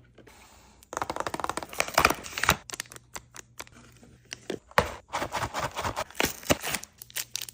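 Restock sounds: quick clicks, taps and crinkles of plastic packaging and containers being handled and set into a mini fridge, coming in clusters with short pauses.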